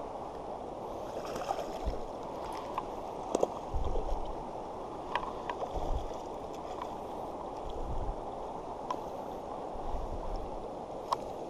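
Shallow river running over a rocky bed: a steady rush of water, with scattered small clicks and a few short low thumps.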